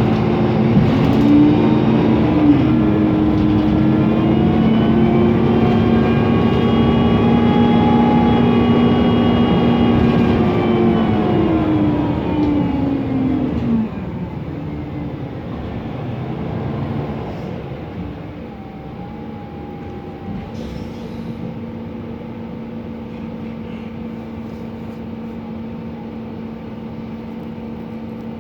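Mercedes-Benz Conecto NGT city bus running on its natural-gas engine. It pulls with its pitch rising over the first couple of seconds and holding, then falls away and quietens between about eleven and fourteen seconds in. It then settles to a steady, lower hum from the engine and its noisy cooling fan.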